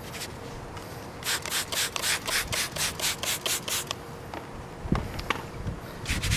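Hand scrubbing cleaner into a used foam polishing pad to loosen caked compound and polish. A run of quick, even rubbing strokes, about five a second, starts about a second in and stops after a few seconds, followed by a couple of light clicks.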